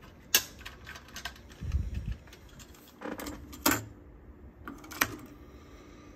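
Plastic clicks and clatter of a cassette being handled and loaded into an Akai GX-9 cassette deck's tape well, with a few sharp clicks from the cassette door and controls. The loudest click comes about a third of a second in, and two more come near the middle and end.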